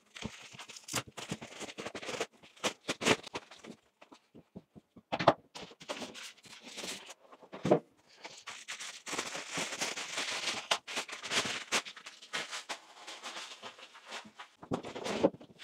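Packaging being handled while items are taken out of a cardboard box: irregular crinkling and crackling with scattered knocks, and a longer stretch of rustling about two-thirds of the way through.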